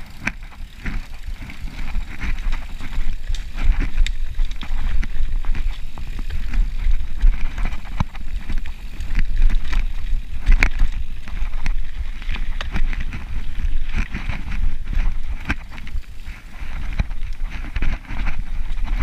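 Mountain bike ridden fast along a dirt forest singletrack: tyres rolling over dirt and roots, the bike rattling with many sharp clacks and knocks over the bumps, over a constant low rumble.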